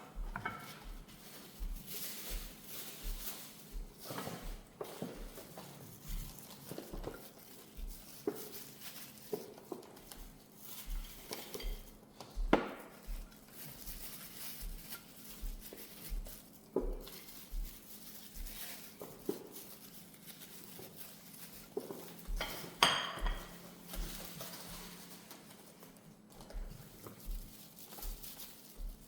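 Kitchen dishes and utensils clinking and knocking at irregular intervals as food is prepared, with two louder clanks, one near the middle and one about three-quarters through, over a steady low hum.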